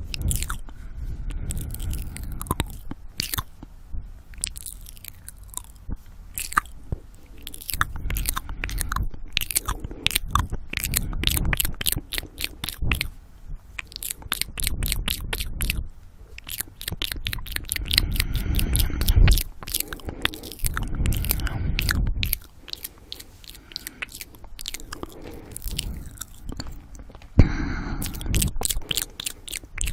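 Close-miked ASMR mouth sounds: a dense run of wet tongue and lip clicks and smacks, with heavy breathing into the microphone coming and going in long swells. Near the end there is a brief voiced sound, the loudest moment.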